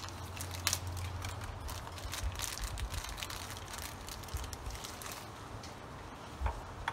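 Paper and plastic packaging crinkling and crackling as it is unwrapped by hand, busy at first and thinning out, with a couple of sharper clicks near the end.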